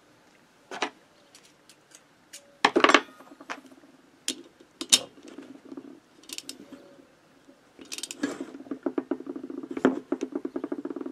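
Ratchet torque wrench working a nut on a Motobécane AV89 moped engine, tightened to 12 N·m as a first pass: a few scattered metal clicks and knocks, then a fast run of ratchet clicks near the end.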